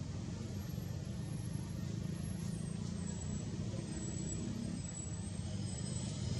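Steady low rumble of a motor vehicle's engine running, with faint high thin tones coming in about four seconds in.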